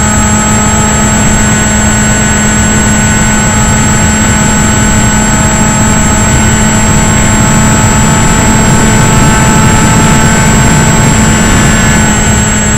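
Electric motor and propeller of an RC model plane heard from its onboard camera: a steady whine of several held tones over a heavy rush of wind on the microphone.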